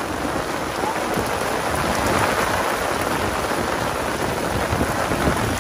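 Steady heavy rain, a constant hiss with a low rumble, falling on the fabric umbrella right overhead and on the flooded ground around.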